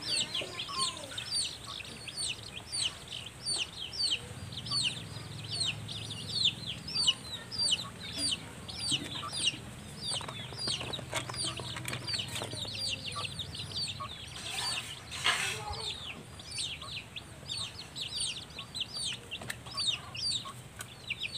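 Quail chirping non-stop, a stream of short high peeps several times a second, with a brief rustle about fifteen seconds in.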